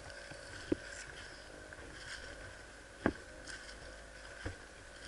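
Three short, sharp snaps or knocks: one just under a second in, one at about three seconds and one near four and a half seconds, over a faint steady background hiss.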